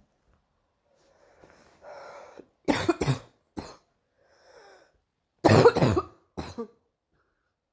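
A girl's barking cough. After a breath in, there is a fit of three sharp coughs about two and a half seconds in. Another breath follows, then a second, louder fit of coughs about five and a half seconds in.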